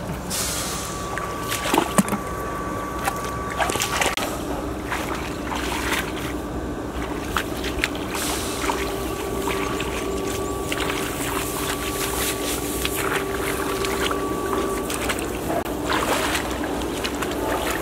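Hands digging and splashing in shallow muddy water, groping in the mud for fish: repeated slaps and sloshes, strongest about two seconds in. A steady hum runs underneath and stops about three seconds before the end.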